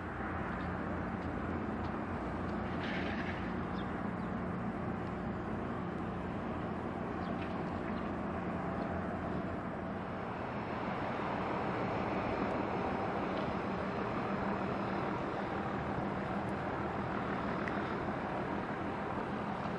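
Steady drone of a RORO cargo ship's diesel engine underway: a low hum under a broad wash of noise, swelling slightly about halfway through.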